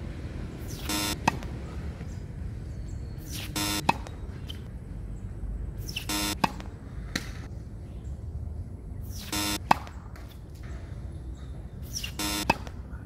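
A tennis racket strikes the ball on the serve five times, about every three seconds, each sharp hit coming just after a short electronic beep edited in with the serve count.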